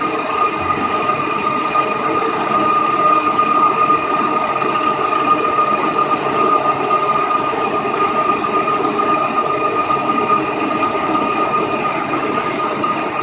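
Concrete floor grinding machine running steadily, its abrasive heads scraping the concrete under a constant high motor whine.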